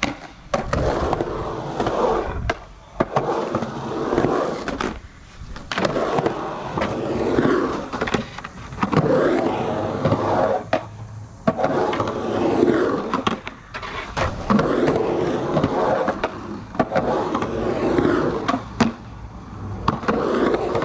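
Skateboard wheels rolling over a concrete skatepark in repeated runs, each a second or two long with short quiet gaps between, and sharp clacks of the board here and there. The board has wide Independent 169 trucks.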